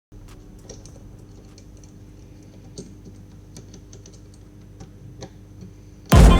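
Light, irregular clicks and taps, like small tools handling phone parts, over a steady electrical hum. Loud music cuts in suddenly near the end.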